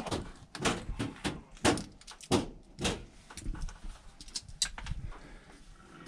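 Irregular knocks and bumps, about two a second, as someone moves about on attic boards and joists. They grow fewer and fainter toward the end.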